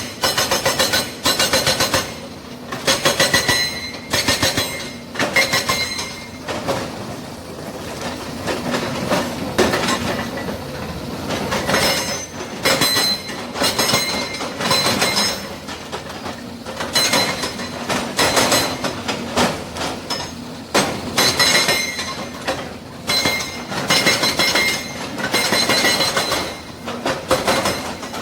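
Excavator-mounted hydraulic breaker hammering, its steel chisel striking in rapid, ringing metallic blows that come in runs with short pauses between them.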